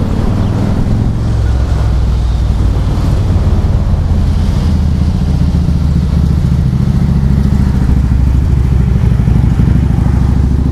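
Strong gusty wind buffeting the microphone, a loud, steady low rumble. This is the outflow wind at the leading edge of a severe thunderstorm.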